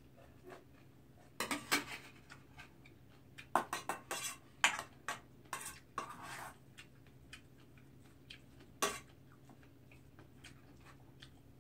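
Metal spoon clinking and scraping against a brass bowl as a serving of young-radish fried rice is stirred and mixed. The clinks come in irregular clusters, with the busiest stretch from about three and a half to six and a half seconds in and a single sharper clink near nine seconds.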